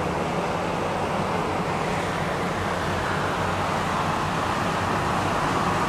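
Steady rush of highway traffic on wet roads, with a low hum underneath.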